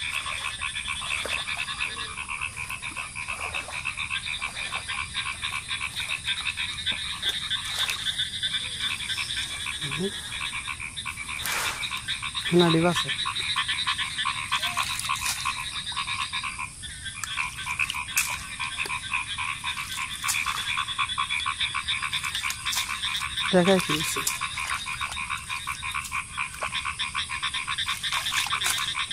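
A dense, steady chorus of frogs calling with rapid pulsing trills from the flooded field. Two short, louder low calls stand out, one about halfway through and one later.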